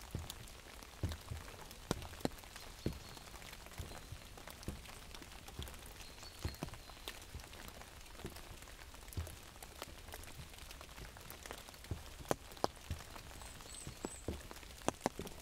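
Rain falling on an umbrella: irregular drops tapping sharply on the fabric over a steady patter of rain.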